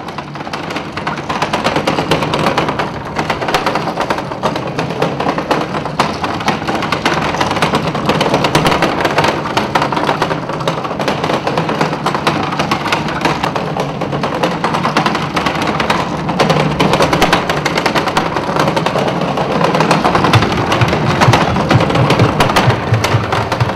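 Loud, dense rapid clattering and crackling, with a low pulsing beat coming in about twenty seconds in.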